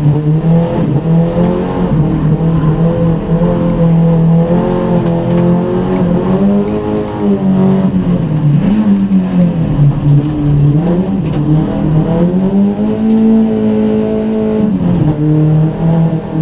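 Rallycross car's engine at racing speed, heard from inside the cockpit. Its pitch climbs and drops again and again as it is driven around the circuit.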